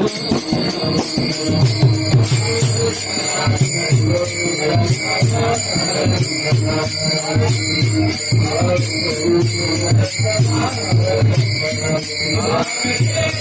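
Kirtan accompaniment playing without voice: a steady drum beat under fast, rhythmic jingling metal percussion.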